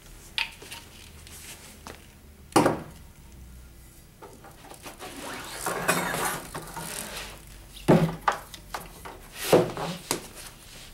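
Handling noise of a steel treadmill head roller being fitted inside the running belt: a handful of sharp metal knocks and clinks against the frame, with scraping and rustling of the belt in between.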